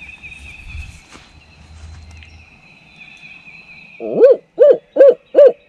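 Loud owl hoots from a turkey hunter's owl locator call, starting about four seconds in: four short hoots in quick succession, each rising and falling in pitch. The call is blown to make a gobbler shock-gobble and give away where he is.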